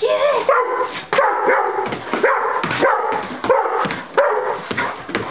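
Pit bull barking in a quick run of short pitched calls, two or three a second, excited by a spot of light it is chasing.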